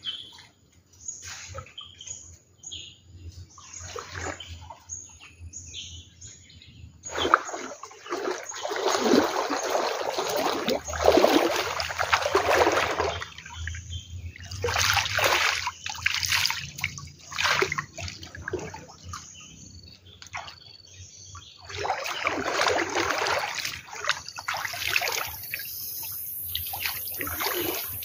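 Muddy floodwater splashing and sloshing around a person wading waist-deep and handling a fishing net, in several bursts of a few seconds each. Short bird chirps sound in the first few seconds.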